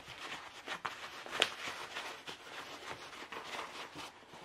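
Large diamond painting canvas and its paper cover being rolled by hand around a tube: papery rustling and crinkling, with one sharper crackle about a second and a half in.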